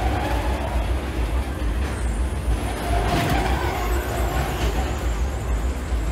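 Steel roller coaster car running along the track overhead, louder as it passes about three seconds in, over a steady low drone.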